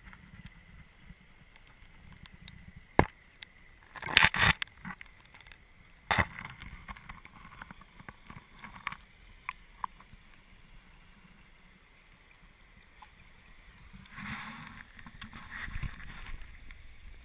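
Hard knocks and clattering against creek-bed pebbles: one sharp knock about three seconds in, a quick cluster a second later, another knock near six seconds, then lighter clicks, and rustling handling noise near the end.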